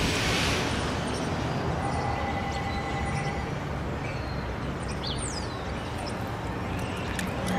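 Steady outdoor background noise, mostly a low rumble, with a short high falling chirp about five seconds in.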